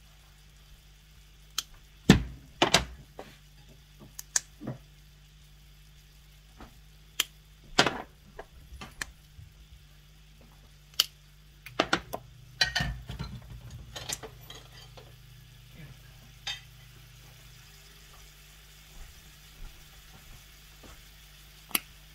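Glass spice shaker jars clicking and knocking as they are picked up, shaken and set down beside a frying pan, in about a dozen separate sharp clicks with a small cluster about halfway through. A low steady hum runs underneath.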